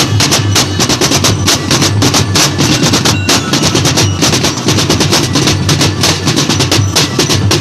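A group of drummers beating large red-headed barrel drums with sticks, playing a fast, continuous rhythm.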